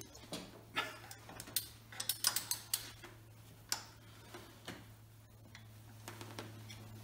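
Ratchet wrench clicking in short, uneven runs as the camshaft sprocket bolts are turned through their angle-tightening step, over a steady low hum.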